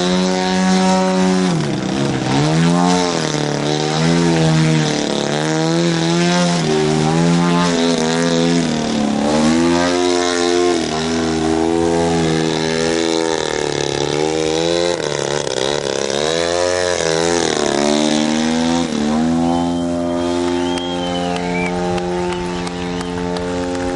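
Radio-controlled aerobatic model airplane's engine running in flight. Its pitch drops and rises again and again as the plane manoeuvres, then holds steady near the end.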